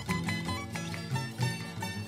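Andean folk music from a studio recording: a quick run of bright plucked charango notes over a lower bass line.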